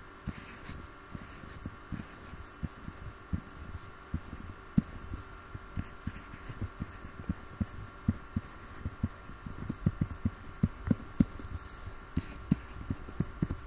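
Soft, irregular low taps from drawing strokes on a computer input device, a few per second and more frequent toward the end, over a faint steady electrical hum.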